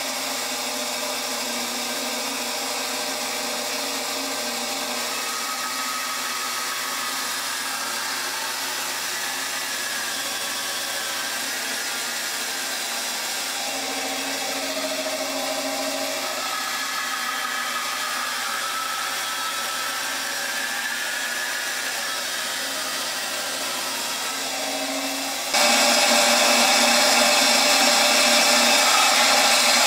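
Delta bandsaw running steadily while cutting a row of narrow slots into two clamped wooden boards. About 25 seconds in the sound turns abruptly louder and hissier and holds there.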